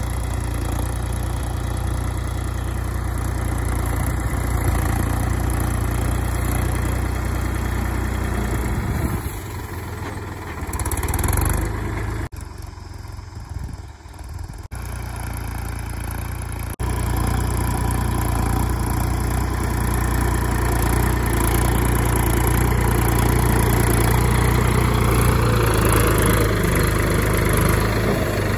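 Mahindra Yuvo Tech+ tractor's diesel engine running under load as its front dozer blade pushes soil. The engine is fainter for a few seconds in the middle, then loud and close, and its note rises and falls near the end.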